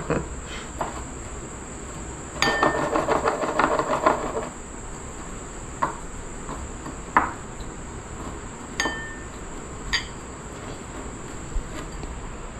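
Fish pieces being pressed and turned in a bowl of dry breadcrumbs: a gritty rustling crackle for about two seconds, then a few single light taps and clinks against the bowl. A steady high whine runs underneath.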